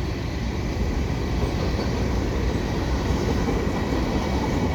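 CN freight train's cars rolling past, a steady rumble of steel wheels on the rails.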